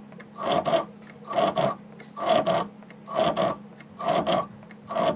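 Metal being scraped or cut in rhythmic rasping strokes, about one a second, each stroke doubled, over a steady machine hum.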